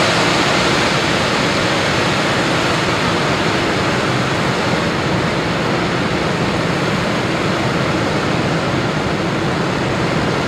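Two Van der Nat medium professional dark-gold firework fountains burning, a steady loud rushing hiss of spraying sparks.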